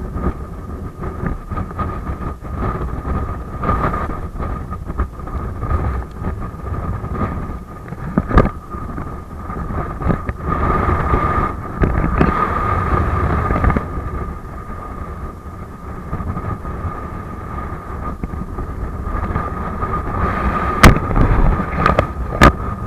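Strong wind buffeting the microphone, a low rumble that swells and eases, with a steady high tone and a few sharp clicks near the end.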